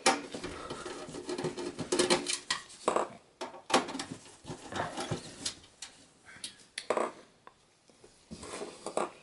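Screwdriver backing out the power supply's mounting screws from a desktop PC's steel rear panel: an irregular run of small metal clicks and scrapes, with a few brief pauses.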